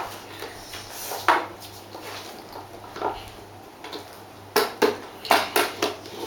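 Hard plastic parts of a table fan knocking and clicking together as the base is fitted onto the stand: a couple of single knocks, then a quick run of clacks in the last two seconds.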